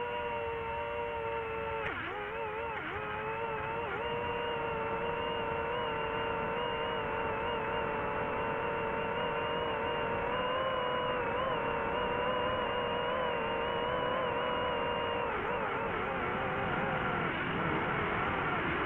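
Multirotor camera drone's electric motors and propellers hovering, a steady whine with several overtones. The pitch wavers briefly now and then as the motors adjust, and it wobbles and dips more in the last few seconds.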